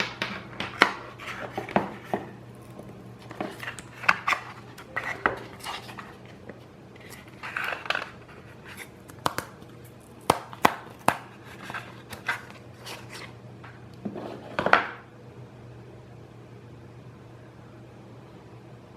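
Packaging and small parts being handled during an unboxing: a string of sharp clicks, taps and short rustles that stops about fifteen seconds in, over a steady low hum.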